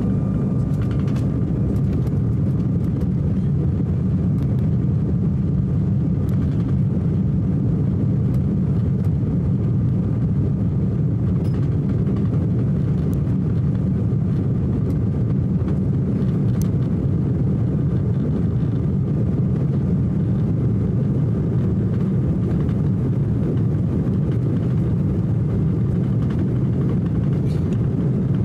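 Steady rumble inside the cabin of an Embraer E190 airliner taxiing, its two General Electric CF34-10E turbofans at low thrust. There is no spool-up.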